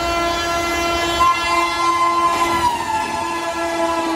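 Electric locomotive's air horn sounded in one long multi-tone blast as an express train runs through at speed. The horn's pitch drops about two and a half seconds in as the locomotive passes, and it cuts off near the end, over the noise of the passing train.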